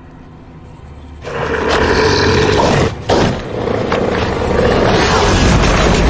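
A monster dog's roar and snarling, a film creature sound effect. It breaks in loudly about a second in, drops out briefly near the middle, then goes on over a low rumble.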